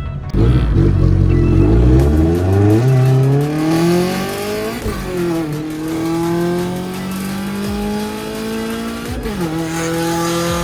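A car engine accelerating hard, its pitch climbing steadily and dropping at upshifts about five and nine seconds in.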